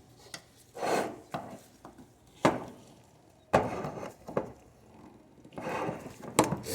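Metal parts of a wheel hub and bearing assembly being handled and worked loose: a series of scattered knocks and clinks with a few short scrapes, a louder patch of scraping and clicking near the end.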